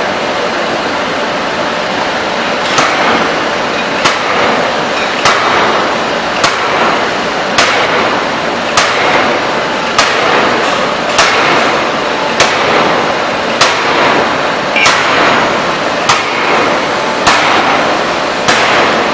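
Electro-hydraulic open die forging hammer striking in a steady run of blows, about one every 1.2 seconds, starting about three seconds in, over a continuous loud rushing noise.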